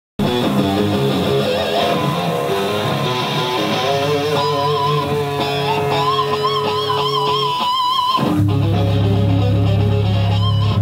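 Live rock band led by a single-cut electric guitar: a run of quick notes, then held high notes with wide vibrato. About eight seconds in, a loud, low held note on bass and guitar comes in.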